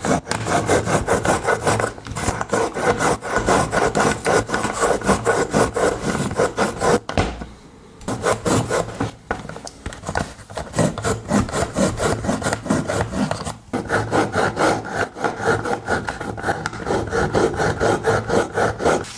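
Pocket knife blade drawn back and forth through a knife sharpener's water-wetted grinding stones, steel rasping on stone in quick repeated strokes. The strokes pause briefly about seven seconds in and again near fourteen seconds.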